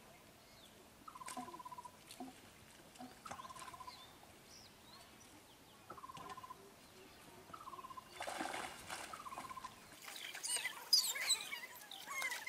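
A bird repeating a short whistled note about every two seconds, each note dipping slightly at its start and then holding steady. A brief burst of noise comes about eight seconds in, and near the end a spell of varied, chirping birdsong takes over.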